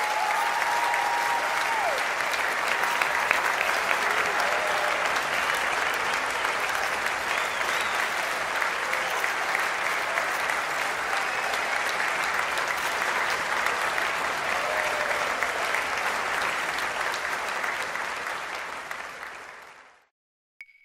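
Audience applause, a dense steady clapping that fades away and ends about twenty seconds in.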